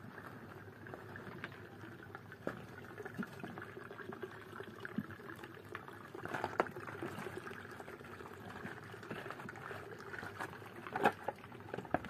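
Steady trickling, pouring water, with a scattered scatter of small clicks and taps over it.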